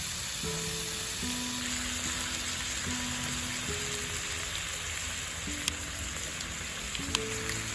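Pork and kimchi sizzling in a frying pan, a steady hiss, under soft background music of held notes; two sharp clicks near the end.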